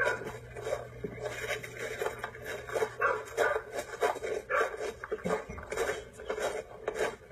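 A cadaver-search dog panting and huffing in short, uneven bursts about twice a second, played back through a phone's small speaker over a low steady hum.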